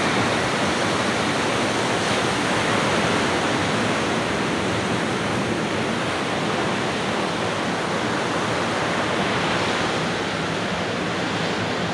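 Ocean waves breaking on the shore: a steady, unbroken rush of surf.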